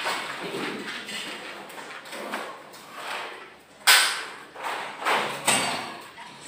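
Construction work: a few sharp knocks and clatters, with the loudest strike about four seconds in and another about a second and a half later.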